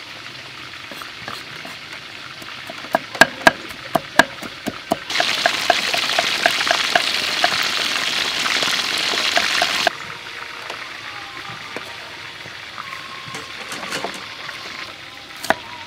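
A kitchen knife chopping on a wooden cutting board, a run of sharp strokes, then a large fish frying in hot oil in a wok, a loud steady sizzle that comes in suddenly and cuts off about five seconds later.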